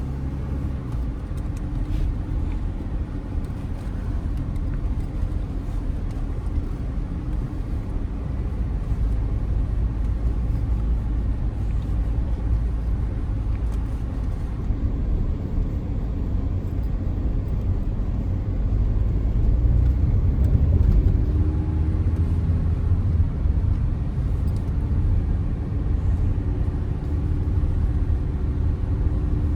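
Audi Q5 being driven: a steady low rumble of engine and road noise, with the engine note rising briefly about two-thirds of the way through.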